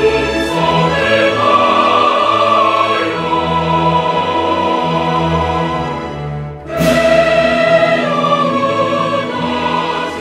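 Choral music with orchestral accompaniment, voices holding long notes. A brief pause comes about two-thirds of the way through before a new phrase begins.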